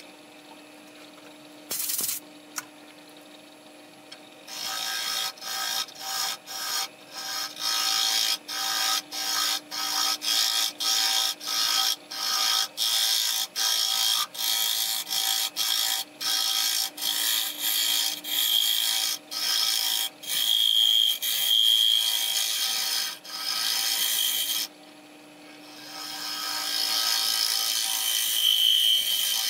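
Bowl gouge cutting the inside of a spinning black walnut bowl on a wood lathe. There are dozens of short hissing passes, about two a second, then after a brief pause one longer continuous cut near the end. The footage is sped up, which quickens the strokes.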